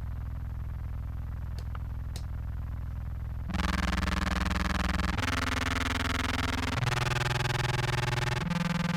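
Contrabass clarinet played through fuzz pedals. It starts on a low, dark held note; from about three and a half seconds in it jumps louder and brighter into a run of long held notes, each changing pitch every second and a half or so, with a thick distorted fuzz tone.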